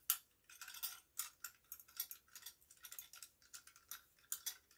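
Faint, irregular small clicks and scrapes, several a second, of hands handling a plastic smoke alarm and its screws while it is being put back together.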